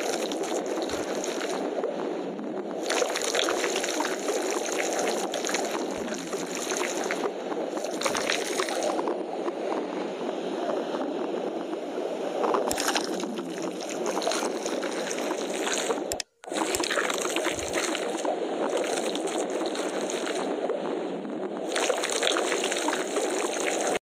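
Steady rushing, gurgling water, like a stream or heavy rain, running without a break except for a split-second dropout about two-thirds of the way through.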